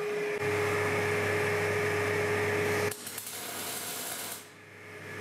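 MIG welder arc crackling and hissing as a bead is laid on the steel engine bed. The sound drops sharply about three seconds in and fades out near the end.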